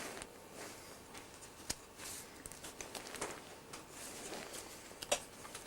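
Faint handling noise: a few sharp clicks and soft rustles, typical of tape and a cardboard box being handled.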